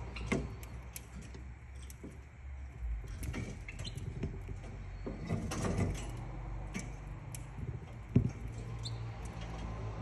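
Pacific parrotlet nibbling and husking seeds from a millet spray: scattered small clicks and crackles of its beak, with one louder knock near the end.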